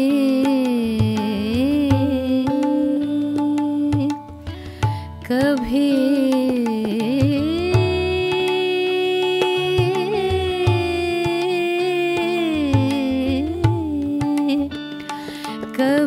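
A woman singing a slow, ornamented melody in Indian semi-classical style, gliding between notes and holding one long note in the middle. Tabla plays under her, with sitar, electric guitar and violin accompanying.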